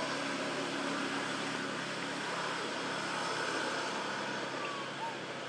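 Steady outdoor background din, with a couple of faint short chirps near the end.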